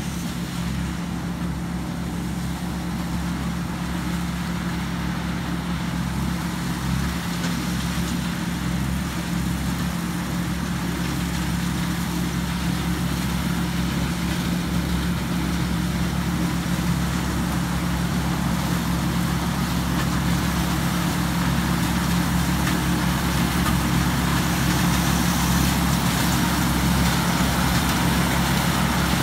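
Tamco S7000 combine harvester's Isuzu 6HK1 six-cylinder diesel engine running steadily under load while harvesting corn, growing slowly louder as the machine comes nearer.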